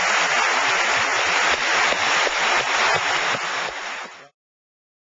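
Audience applauding, a steady dense clapping that cuts off abruptly about four seconds in.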